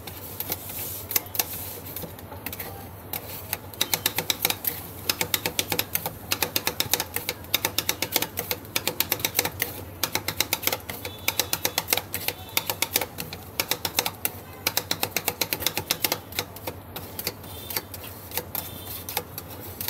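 Metal spatula rapidly chopping and tapping ice cream mixture on a steel cold plate for rolled ice cream: fast runs of sharp metal-on-metal clacks, many a second, broken by short pauses, over a steady low hum.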